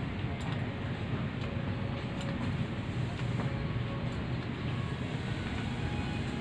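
Supermarket ambience: a steady low rumble with faint scattered clicks and ticks.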